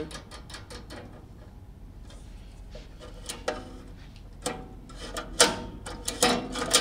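Small metallic clicks and clinks of a bolt and nut being fitted by hand to the steel connecting plate and link bar of a pool table's lock mechanism. Scattered taps, thickening into a cluster of louder clicks from about five seconds in.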